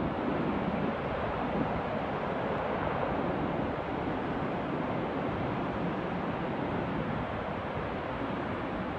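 Steady rushing roar of a large oil refinery fire, an even noise without distinct bangs.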